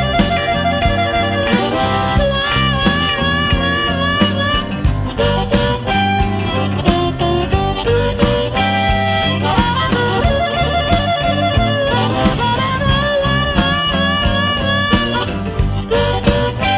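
Electric blues band playing an instrumental break, with a lead guitar playing wavering, bent notes over bass and a steady drum beat.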